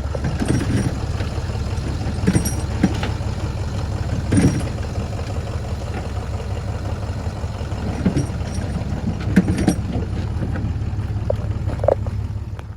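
Truck engine running with a steady low drone, with occasional clanks and rattles over it; it cuts off abruptly at the end.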